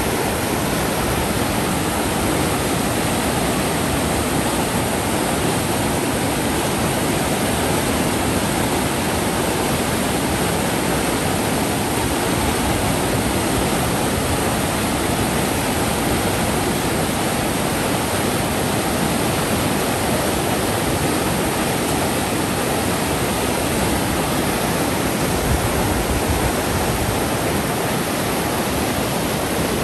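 Floodwater rushing, a steady, unbroken noise of flowing water that keeps an even level throughout.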